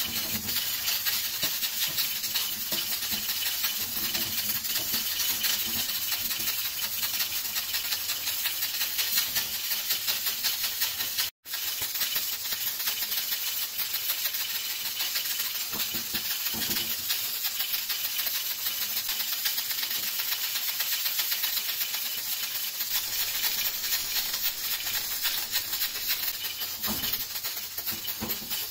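Steady hissing with a fine crackle from a hot tawa on a lit gas burner while flatbread cooks on it. The sound cuts out for an instant about eleven seconds in.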